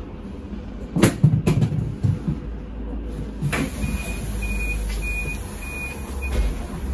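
Sinara-6254 trolleybus doors at a stop: a few sharp knocks as the doors work, then a short high warning beep repeating about every 0.6 s, five times, over the trolleybus's steady low hum.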